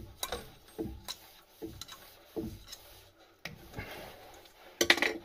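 Hand-handled plastic plumbing fittings giving irregular small clicks and taps as pipe parts are put together, with a quick cluster of sharper clicks near the end.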